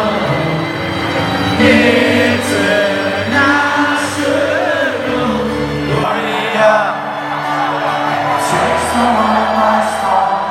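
Live band music with singing and guitar, played loud through a concert hall's sound system and heard from among the audience.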